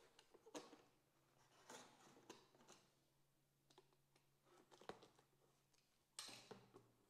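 Faint crackling and rustling of plastic film and cardboard as a packed speaker box is handled, in scattered short crackles over a faint steady hum.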